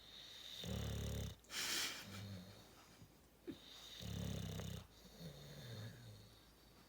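Sleeping snoring: two low, buzzing snores, about a second and four and a half seconds in, the first followed by a short hissing breath. Faint low whistles from the nose come between them.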